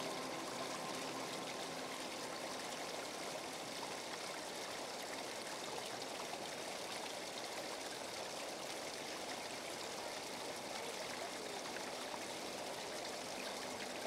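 Small waterfall trickling down a rock face onto a bed of stones: steady, even splashing of falling water.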